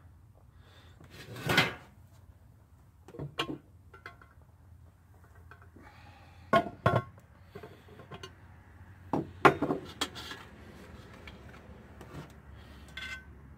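Cast iron lid of a 14-inch Camp Chef Dutch oven clanking as it is handled with a metal lid lifter and set down on the pot: a few separate metallic knocks and clunks with pauses between them.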